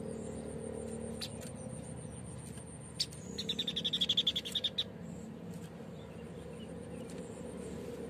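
White-breasted babbler (Stachyris grammiceps) giving a fast, high trill of about a second and a half near the middle, over a low steady hum. A couple of sharp clicks come before it.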